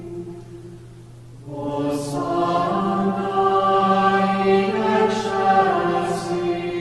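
Voices chanting a slow devotional chant in long held notes. A phrase fades out just after the start, and a new sustained chord begins about a second and a half in, with soft hissing consonants now and then.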